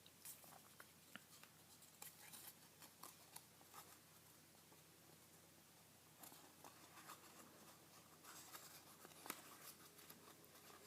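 Faint rustling and crinkling of a sheet of paper being folded and creased by hand, with scattered light crackles.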